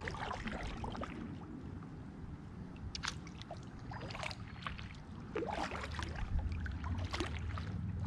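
Kayak paddle strokes, the blades splashing and dripping in the water at an uneven pace; a low rumble comes in and gets louder about five seconds in.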